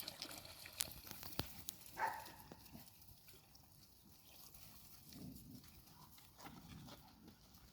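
Thirsty puppies drinking water, faint: a few soft clicks in the first two seconds, a brief louder sound about two seconds in, then soft low sounds.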